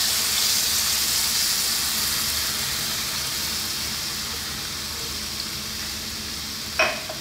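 Pork belly sizzling in a hot frying pan as coconut cream is poured over it: a steady hiss that slowly fades. A short sharp sound comes near the end.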